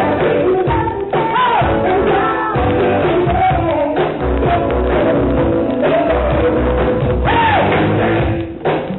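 Dance music with a singer and a steady drum beat, playing loudly; near the end it dips and turns choppy.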